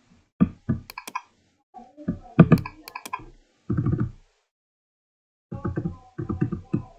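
Computer keyboard and mouse clicks: scattered single clicks and key presses, then a quick run of repeated key presses near the end.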